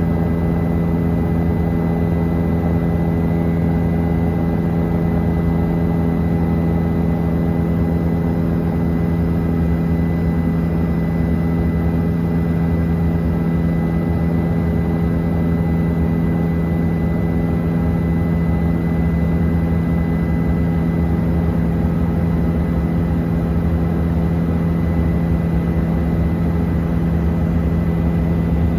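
Helicopter in steady flight, heard from inside the cabin: a loud, unchanging drone of engine and rotors with a steady low hum and a thin constant whine above it.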